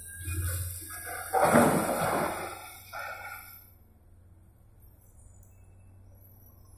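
Coal tipped from a large excavator bucket into the steel body of an articulated dump truck: a loud rush of falling coal about a second and a half in, lasting about a second, then a smaller spill. After that only a low steady hum remains.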